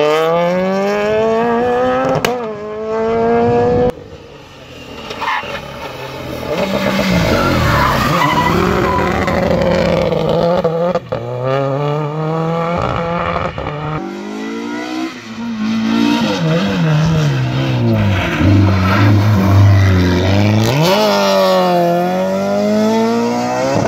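Rally car engine revving hard, its pitch climbing and dropping again and again through gear changes and lifts, with tyres skidding on the stage. The sound falls away sharply about four seconds in, then builds back up.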